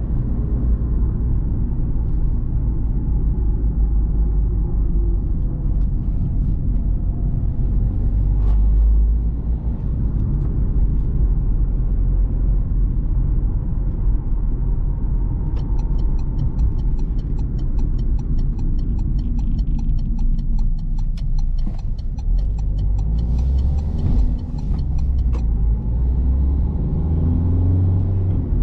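Citroen C3 Picasso's 1.6 HDi four-cylinder turbodiesel running in city driving, heard from inside the cabin as a steady low rumble with road noise. For about ten seconds in the middle, the turn indicator ticks at an even rate.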